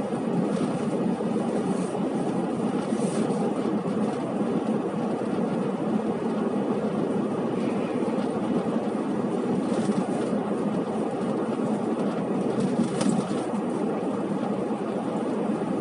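Strong wind rushing steadily, a dense noise with no breaks.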